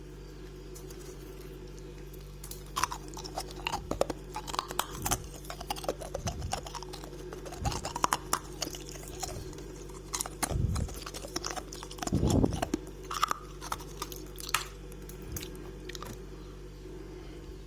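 Someone biting and chewing freezer frost close to the microphone: irregular crisp crunches that start a couple of seconds in and thin out near the end, over a steady low hum.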